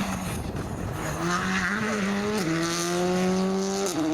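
Rally car engine accelerating hard, the revs climbing and then falling sharply at an upshift about halfway through and again near the end.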